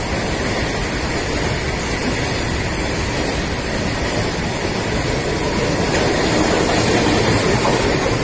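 Freight train running, a steady rumble of wheels and wagons that grows a little louder near the end.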